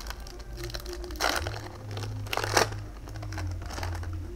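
Foil booster pack wrapper crinkling and trading cards being handled, with two louder rustles about a second and two and a half seconds in, over a low steady hum.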